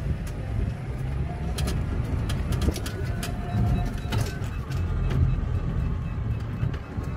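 Small electric rental car driving: a steady low rumble of wind and road noise, with frequent short rattles and clicks from the car's body.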